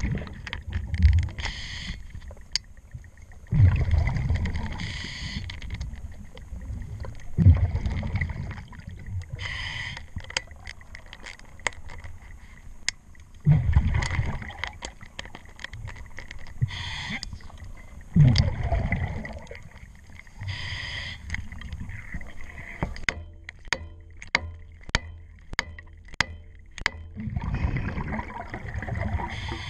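Scuba diver breathing through a regulator underwater, each exhalation a loud rush of bubbles every few seconds. Between breaths, sharp metallic clicks from a ratchet wrench tightening the bolts of a collar zinc anode on a propeller shaft, coming in a quick regular run a little before the end.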